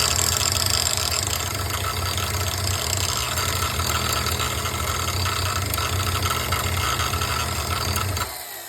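A power grinder runs steadily, grinding metal off the 19 mm drive head of a spark-plug thread-repair tap to bring it down to 18 or 17 mm. Near the end it is switched off, and its whine falls in pitch as it spins down.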